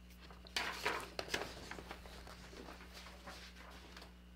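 Soft rustles and light clicks of handling and movement as a paper card and marker are handled and the card is put up on a quilt, bunched in the first second and a half and then fainter, over a faint steady hum.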